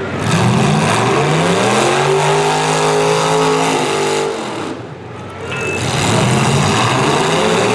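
V8 engines of demolition derby cars revving hard. The pitch climbs and holds for a few seconds, falls away about two-thirds of the way through, then climbs again.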